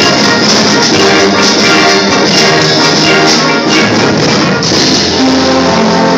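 School concert band of woodwinds and brass playing, holding chords that change every second or so.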